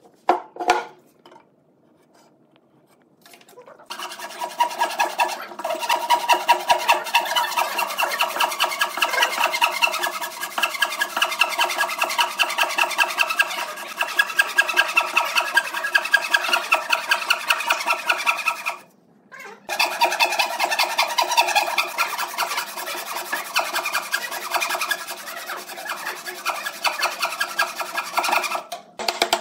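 Hand sawing across a wooden beam with a wooden frame saw: quick, steady back-and-forth rasping strokes. The sawing starts about four seconds in, stops for about a second in the middle, then resumes until near the end. Two short knocks come just before the sawing.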